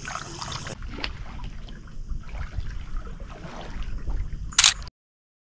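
Shallow seawater sloshing and trickling around someone wading, with wind rumbling on the microphone. A short sharp burst of noise near the end, then the sound cuts off abruptly.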